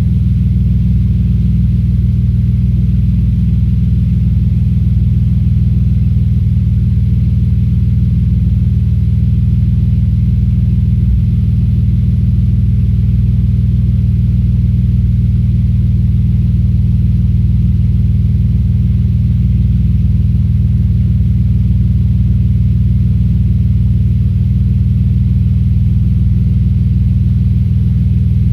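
Audi S4 B5's 2.7-litre twin-turbo V6 idling steadily with a misfire.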